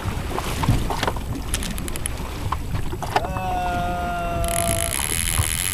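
Wind buffeting the microphone over open water on a boat, with scattered knocks. About three seconds in, a steady pitched tone holds for under two seconds, and a high hiss comes in near the end.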